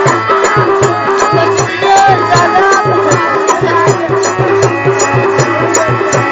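Loud Bangla jatra dance music with a quick, steady drum beat under a wavering melody.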